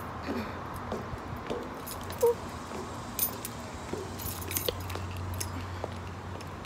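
Keys jingling and clinking in a hand while walking, with a sharper clink about two seconds in, over a low steady hum.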